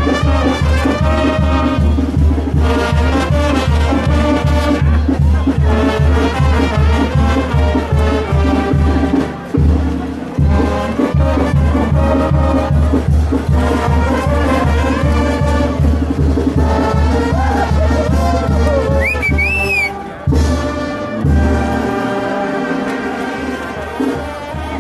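Loud Latin brass-band music, trumpets and trombones over a steady bass beat, with a short sliding high note about three-quarters of the way through.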